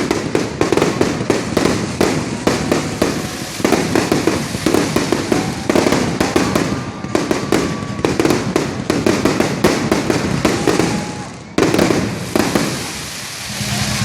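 Fireworks going off in a rapid barrage of bangs and crackles, several a second. There is a brief break about eleven and a half seconds in, and the barrage thins out near the end.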